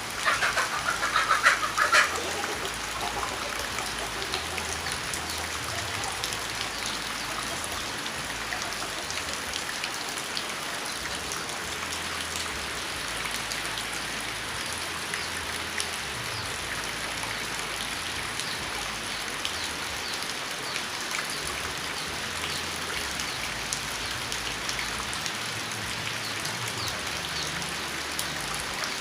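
Steady rain falling, with many separate raindrops ticking on a surface. A brief louder burst of sound comes in the first two seconds.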